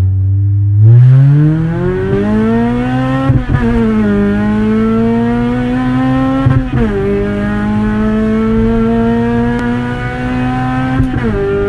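A four-cylinder engine accelerating hard through the gears, loud. It holds a steady low note for about a second, then rises in pitch, drops at each of three upshifts, and climbs again after each one.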